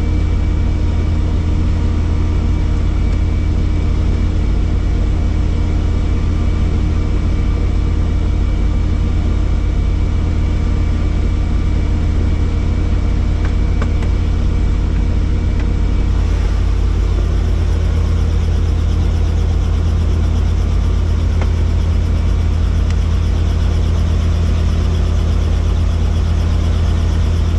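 Helicopter engine and rotor running with a loud, steady low drone.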